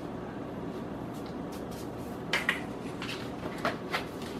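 A few short, light knocks and rustles from handling a cardboard canister of rolled oats on a kitchen counter, the clearest a little past two seconds in.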